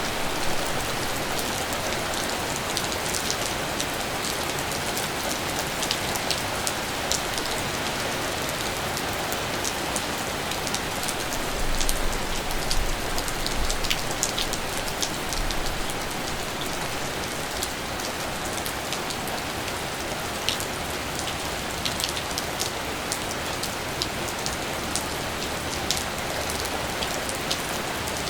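Steady rain falling, with individual drops ticking sharply on a surface throughout. A low rumble swells for a few seconds about halfway through.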